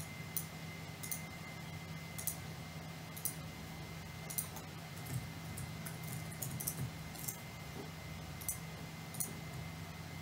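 A dozen or so short, faint clicks at irregular spacing, over a steady low electrical hum.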